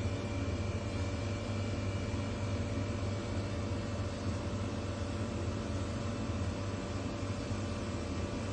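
Road train truck driving on a dirt road: a steady low engine drone with even rushing wind and road noise, and no impacts.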